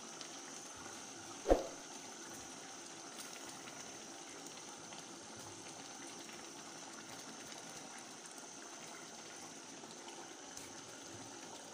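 Pot of tomato stew simmering with a faint, steady bubbling hiss. A single sharp knock about a second and a half in.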